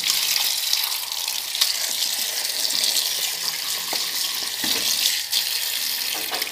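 Tap water running onto cut potato strips in a plastic colander over a steel sink: a steady splashing hiss, with a few light clicks as the strips are turned by hand.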